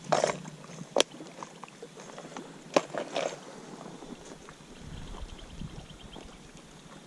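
Small clear plastic tackle box being handled, shut and set down on rock: a short clatter at the start, a sharp snap about a second in, and another snap with a brief rattle near the three-second mark. Faint water sounds lie behind.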